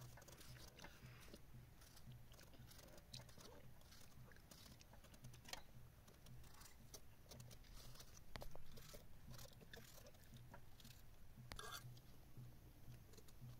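Near silence with faint scattered taps and clicks over a low steady hum, a little louder for a moment about eight seconds in.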